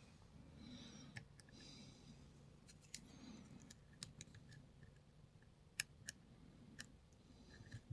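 Faint, irregular clicks of a lock pick and tension wrench working in the keyway of a Lockwood 334B45 padlock, tools tapping and lifting its pins under light tension.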